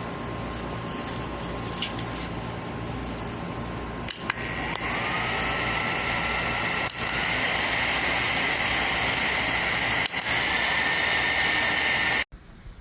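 Small battery-powered neck fan running with a steady whirr and thin motor whine. Button clicks step it up to a louder, higher-pitched speed about four seconds in, and again near ten seconds. It cuts off suddenly near the end when switched off.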